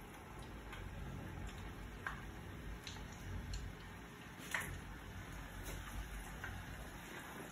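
Cut potato fries frying in a pot of hot oil: a faint, steady bubbling sizzle with a few scattered soft ticks and pops as more fries are dropped in a few at a time.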